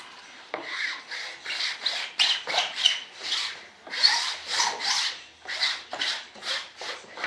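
Hand squeegee scraped back and forth over a resin-wetted wing-skin layup, in quick repeated strokes about two a second, starting about half a second in.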